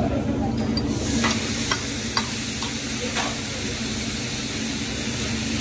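Food sizzling on a hibachi griddle, the hiss swelling about a second in, with several light clinks of cutlery early on over a steady low hum.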